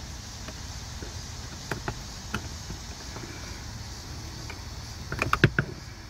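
Screwdriver clicking and scraping against a slotted shear bolt on the ignition lock clamp of a steering column: a few light clicks about two seconds in, then a quick cluster of louder clicks near the end, over a steady low hum.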